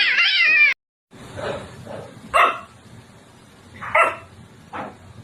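Cat vocalising: a loud run of quickly wavering cries that cuts off under a second in, then after a brief silence five short calls, two of them loud.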